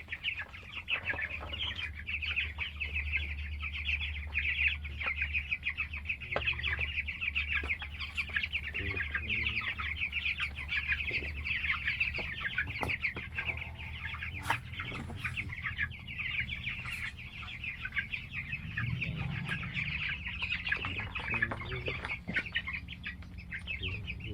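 A flock of chickens calling continuously: many quick, high, overlapping calls, with a few knocks and a low hum underneath for roughly the first half.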